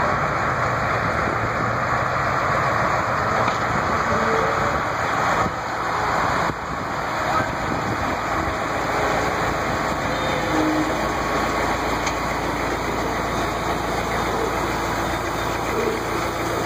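Engine of the McKeen motor car #22, a self-propelled railcar, running steadily as it creeps slowly along the track.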